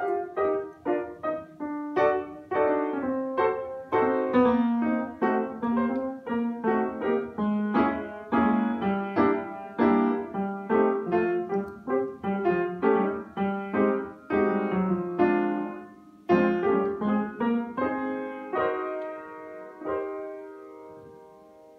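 Upright piano played by hand: a tune of struck notes over chords, with a short break about sixteen seconds in, ending on held chords that ring and fade away.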